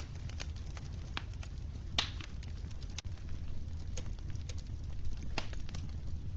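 Wood fire crackling in a fireplace: irregular sharp pops and snaps over a steady low rumble, with a louder pop about two seconds in.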